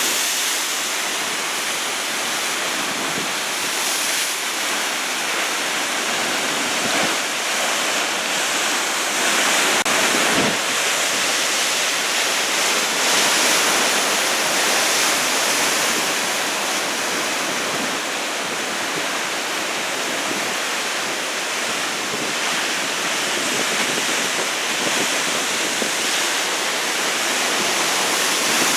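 Big typhoon-swell surf breaking: a steady, loud roar and hiss of whitewater that swells slightly now and then.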